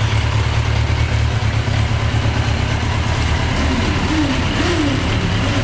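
Yamaha Diversion 900's air-cooled inline-four engine idling steadily.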